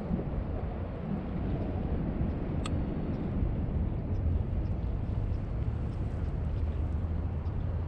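Low, steady engine rumble whose hum grows stronger about halfway through, with one sharp click a little before three seconds in.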